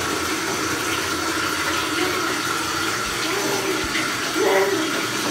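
Bathtub filling from the tap: a steady rush of running water.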